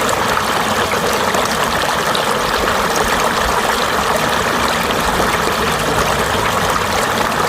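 Valley stream running steadily, an even rush of flowing water with fine splashing and trickling.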